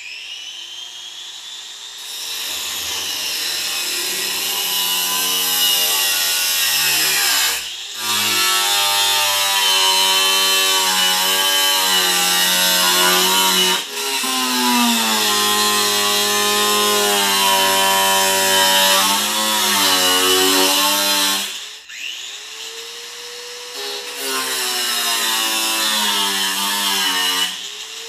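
Handheld power cut-off tool spinning up with a rising whine, then cutting through the sheet-steel truck cab roof, its pitch sagging under load with a harsh high hiss from the cut. It lets off briefly twice, stops about three quarters of the way through, then spins up again.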